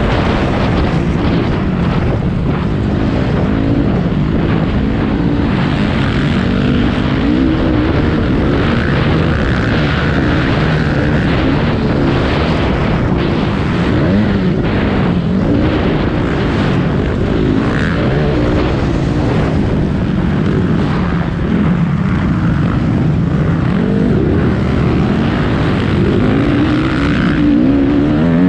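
Racing engines running hard, their pitch rising and falling with the throttle the whole time.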